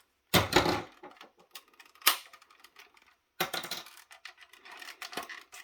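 Snap-together plastic case of a cordless headset base station being forced apart: a sharp crack about half a second in, another snap about two seconds in, then a run of small clicks and rattles near the end.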